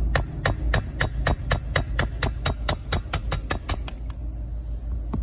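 Light, quick metal taps of a small hammer on a punch, driving the piston pin out of a Stihl MS 362 chainsaw piston. The taps come about four to five a second, quicken, and stop about four seconds in.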